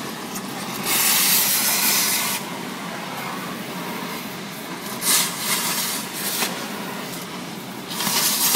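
Oxy-fuel cutting torch hissing steadily on a strut's top nut, with three louder rushing blasts (about a second in, around five seconds in, and near the end) as the cutting oxygen is fired to cut through the seized nut.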